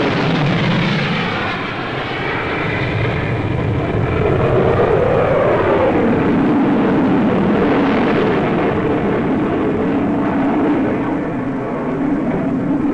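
F-4 Phantom II jet fighter flying past low, its twin J79 turbojets making a loud steady roar whose pitch slides down and then back up as the aircraft passes and turns.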